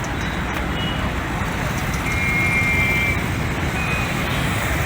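Steady road traffic noise, with a faint high tone about two seconds in that lasts about a second.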